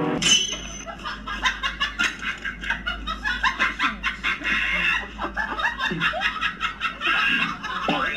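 Laughter in many quick, short bursts of snickering and chuckling, over a low steady rumble.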